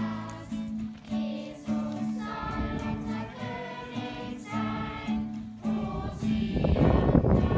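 A small congregation singing a hymn to strummed acoustic guitar, the low accompaniment note repeating steadily under the voices. Near the end a gust of wind rumbles loudly on the microphone.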